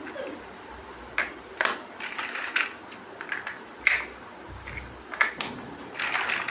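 Plastic building bricks being handled and snapped together: several sharp clicks at irregular intervals, with small clattering rattles between them.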